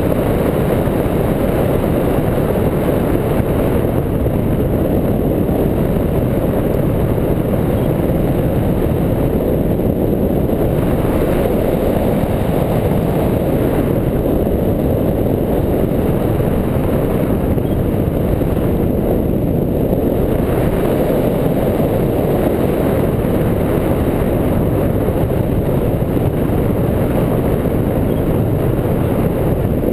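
Steady, loud wind rush over the microphone of a camera mounted on a hang glider's wing in flight, a dense low roar with no breaks.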